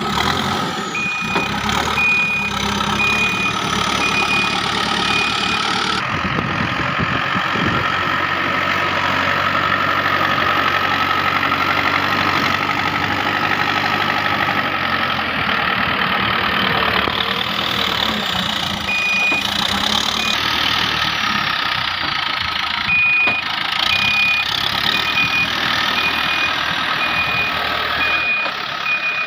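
Heavy diesel engine of earth-moving machinery running steadily, with a reversing alarm beeping just under once a second near the start and again over the last few seconds.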